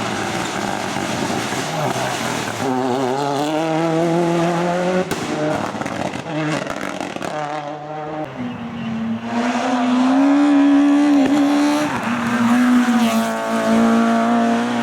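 Race car engine at full throttle on a hillclimb run: it revs up through a gear, the note drops sharply at a shift about five seconds in, comes in short blips of throttle, then holds a high, loud note with brief dips near the end.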